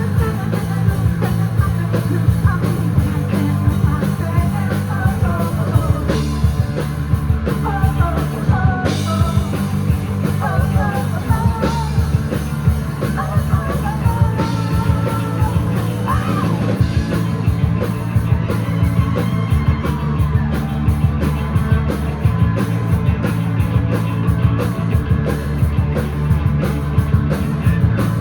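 Live rock band playing: drums, bass and guitars, with a bending lead line over the steady beat. The drumming grows busier about two-thirds of the way through.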